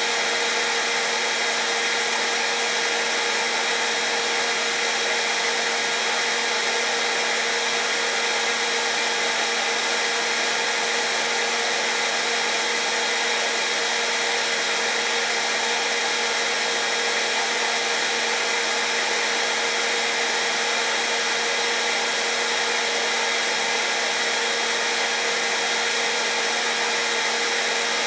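Hair dryer running steadily: a constant rush of blown air with a steady motor hum and whine that do not change in pitch or level.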